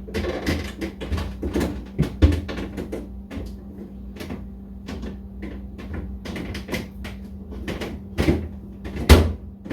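Repeated knocks, clicks and clatter of household things being handled and pushed into place, with a sharp bang about two seconds in and a louder one near the end. A steady low hum runs underneath.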